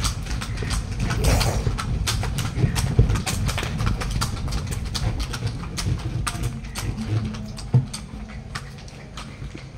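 Buffalo bull's hooves clopping on a paved street as it pulls a cart, with the cart rumbling underneath; it gets somewhat quieter near the end.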